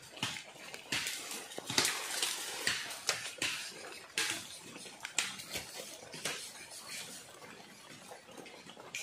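Irregular wooden knocks and clicks with rustling of leaves and brush, from wooden poles and sticks being handled and carried through cut vegetation.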